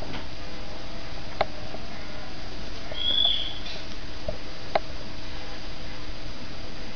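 Steady background hiss, with one short high animal squeak about three seconds in and two sharp clicks, about a second and a half in and near five seconds, as a cockatoo pecks at a cat.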